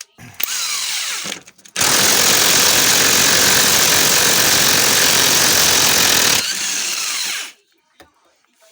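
Pneumatic impact wrench running in bursts: a short run about half a second in, then a long loud run from about two seconds in that drops to a quieter run near seven seconds and stops, undoing bolts to remove a car's lower control arm.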